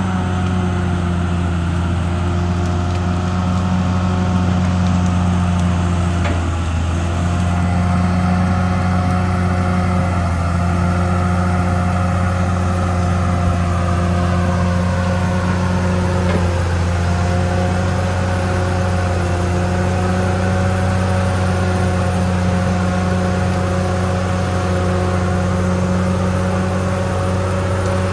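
CAT D6R XL bulldozer's diesel engine running steadily at working speed, a loud low drone with a fainter whine on top that wavers slightly in pitch partway through.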